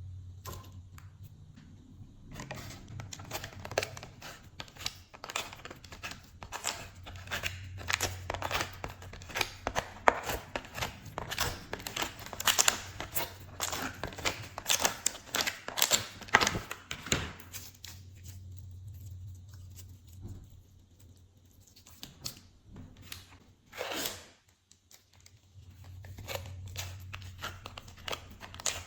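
Glossy slime being worked by hand, making rapid sticky clicks and crackles. The clicks are dense from about two seconds in until past the middle, then thin out to scattered ones. A faint steady low hum runs underneath.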